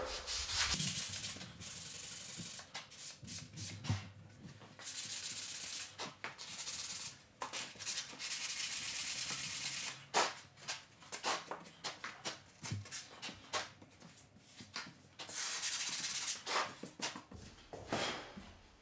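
Flexible sanding sponge rubbed by hand over wooden window sill trim, sanding dried wood filler off a nail hole flush with the profile. Long, steady strokes give way to a run of short, quick scrubbing strokes in the middle, then longer strokes again near the end.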